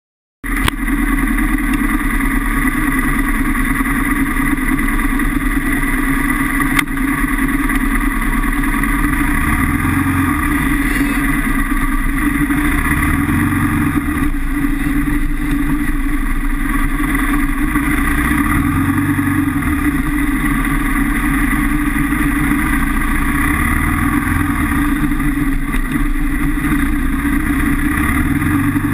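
Kawasaki KLR650 single-cylinder engine running steadily at trail speed, its pitch rising and falling a little, heard through a bike-mounted camera. One sharp click about seven seconds in.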